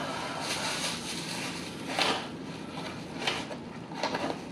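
Rustling of a plastic takeout bag and handling of cardboard takeout boxes, in several swells with a few small knocks near the end.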